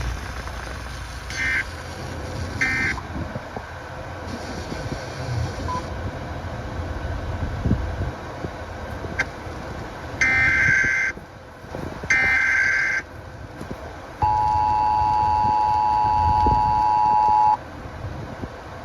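Emergency Alert System signals: two short warbling SAME data bursts about a second and a half and almost three seconds in, the end-of-message code after the previous alert. About ten and twelve seconds in come two one-second SAME header data bursts, then the steady two-tone EAS attention signal, held for about three seconds. A low background noise runs under it all.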